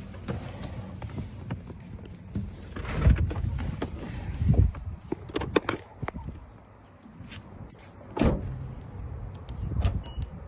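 Clunks and clicks from a car's doors and door locks, with a few heavier thuds about three, four and a half and eight seconds in.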